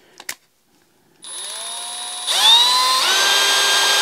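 A click near the start, then a Milwaukee cordless drill starts about a second in, spinning a screwdriver held in its chuck. Its motor whine steps up in pitch twice as it speeds up, then runs steady at high speed.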